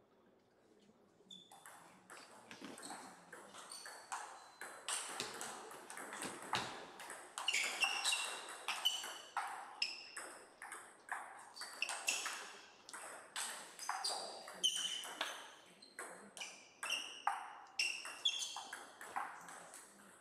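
Table tennis rally: a celluloid-type ball clicking off rubber paddles and bouncing on the table, back and forth in a long run of sharp, ringing ticks that starts about a second and a half in and keeps going until the point ends near the end.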